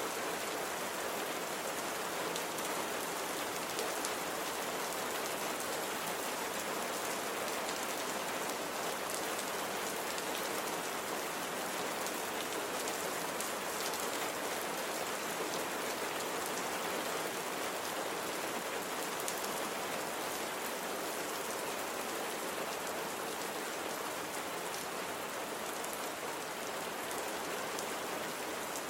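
Steady rain falling and pattering on a surface, an even hiss with fine drop taps.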